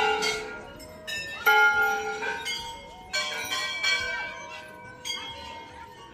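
Hanging brass temple bells struck by hand one after another, a new strike about every second, their many different tones overlapping and ringing on as they fade.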